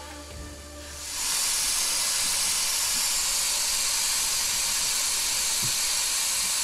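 Loud steady hiss of steam from an overheated inboard boat engine that has lost its coolant, starting suddenly about a second in.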